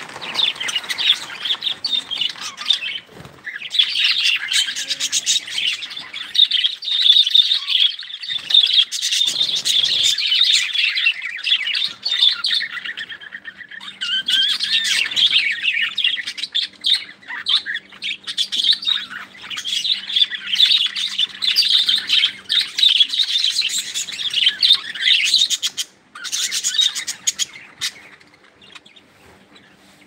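A flock of budgerigars chattering, a dense, continuous high twittering and chirping of many birds at once, which falls much quieter near the end.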